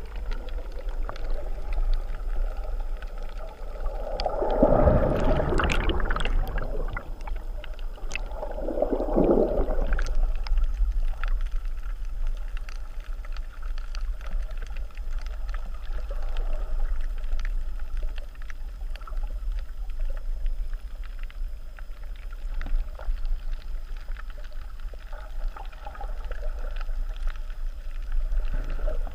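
Underwater sound of tidal surge churning over a reef, heard through a GoPro's waterproof housing: a steady low rumble with rushing swells of churning water and bubbles, the loudest about five and nine seconds in, and scattered small clicks.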